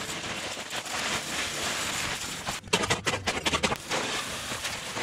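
Gravel poured from a bag into a post hole: a dense rattle of small stones for about a second near the middle, over a steady hiss.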